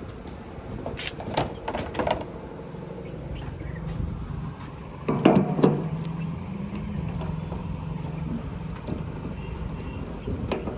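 A diesel engine running steadily, with a few sharp knocks in the first couple of seconds. About five seconds in there is a louder clatter, and the engine note steps up briefly after it.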